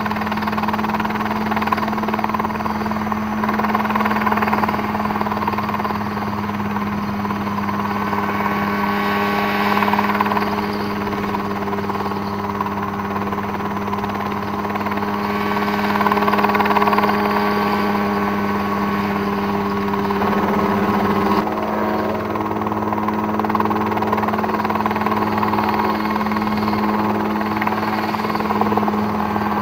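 Mosquito ultralight helicopter running steadily, its engine and rotor giving a constant hum that swells a little now and then, with a slight change in pitch about twenty seconds in.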